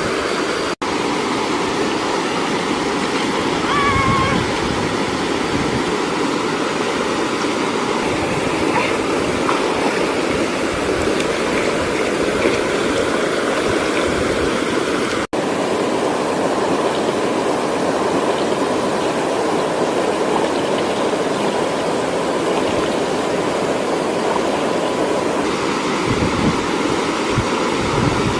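Steady rushing of a small waterfall pouring into a rock pool, which cuts out for an instant twice, about a second in and again about fifteen seconds in.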